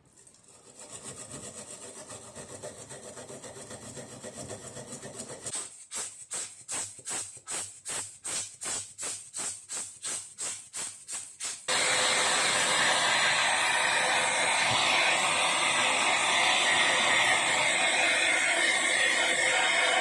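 Rhythmic scrubbing or rubbing strokes, about two a second, then a loud steady rushing noise that starts abruptly about twelve seconds in.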